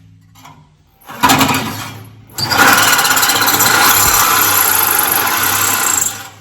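Reciprocating saw (sawzall) cutting metal: a short burst about a second in, then a longer steady, loud run of about four seconds that stops suddenly near the end.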